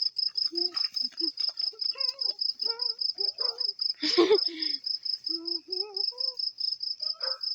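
Crickets chirping in a steady, rapid high-pitched pulse, about seven pulses a second, with faint voices underneath and a short louder voice about four seconds in.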